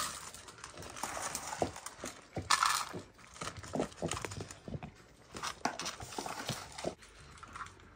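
Dry cat food being tipped from a plastic container into cat bowls while several cats eat from them: irregular small clicks and knocks of kibble and bowls, with a brief louder rattle about two and a half seconds in.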